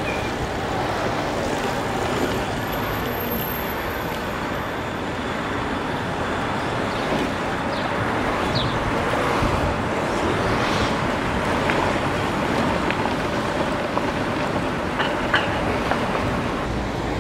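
Steady road traffic noise heard while riding an electric bike along a busy street, with a few faint ticks now and then.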